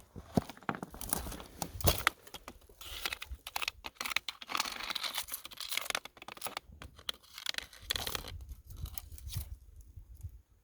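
Irregular crunching, scraping and rustling on dry, rocky creek ground, with scattered sharp clicks of rock and gravel. It is busiest in the first half and thins out near the end.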